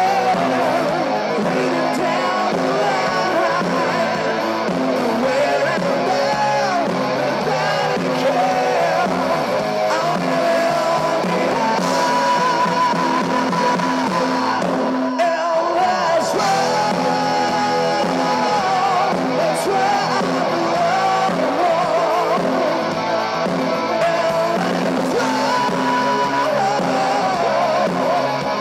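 Live hard rock band playing at full volume through a PA, heard from the audience: electric guitars, bass and drums with singing.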